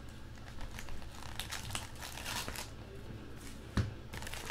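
Crinkling and rustling of the packaging as hands open a box of 2014 Topps Platinum football cards, with a sharper knock about four seconds in.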